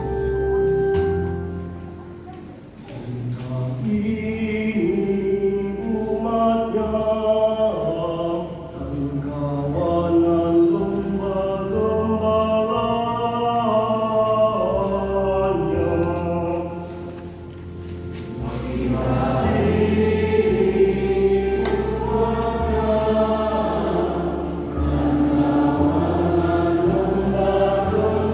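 A choir sings a hymn in harmony over sustained organ chords and steady bass notes. The sound dips briefly between phrases about 3 seconds in and again around 18 seconds.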